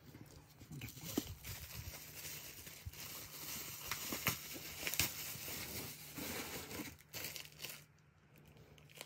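Handling noise from a Shimano Deore rear derailleur being turned over in the hands and set down on a soft blanket: irregular rustling and crinkling with scattered light clicks. It dies down near the end.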